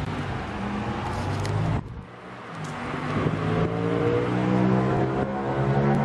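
A vehicle pulling away, its motor tone rising in pitch and growing louder. There is a sudden break about two seconds in, before the rise begins.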